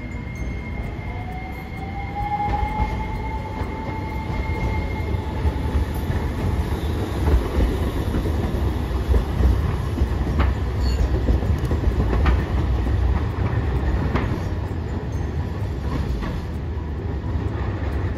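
A Hiroden Green Mover Max articulated low-floor tram passes close by. Its wheels rumble heavily on the street track, with a few sharp clacks over the rail joints. A whine rises in pitch during the first few seconds.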